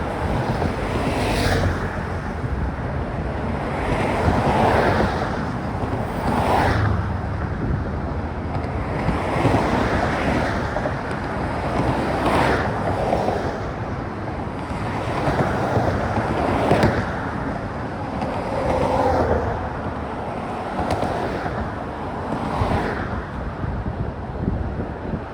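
Gusty wind buffeting a phone's microphone, the rumble swelling and fading every second or two.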